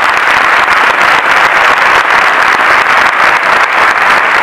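Large audience applauding, steady and loud.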